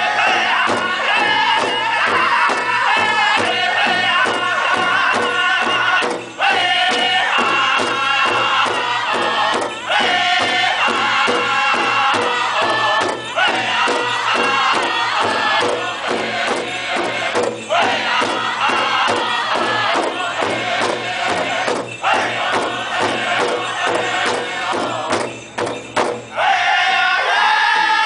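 A pow wow drum group of several men singing in high-pitched unison over fast, even beats on a large shared drum, in the Northern style. The song breaks off briefly between phrases several times, and near the end a high lead voice starts a new round that falls in pitch.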